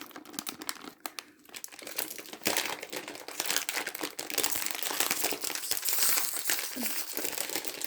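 Toy packaging crinkling and crackling as it is handled, with many small crackles that grow denser and louder after about two seconds.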